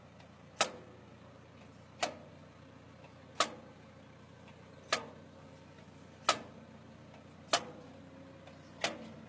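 Tractor-drawn seedling transplanter running with a steady low hum, its planting mechanism giving a sharp click about every 1.3 seconds, seven times, as it sets each seedling in the furrow.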